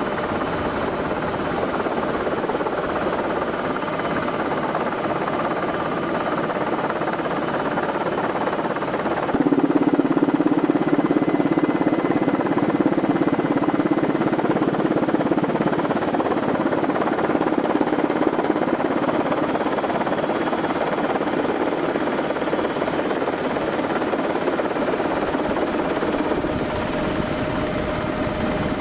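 Steady drone of an aircraft's engines heard from on board, with a stronger low hum coming in about nine seconds in and fading out a few seconds later.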